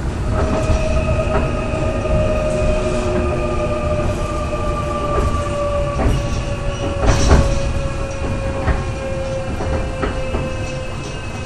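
KORAIL Line 3 electric subway train heard from inside the carriage as it slows toward its terminus: steady running rumble with a high whine that slowly falls in pitch. Knocks from the wheels over the track come through a few times, loudest about seven seconds in.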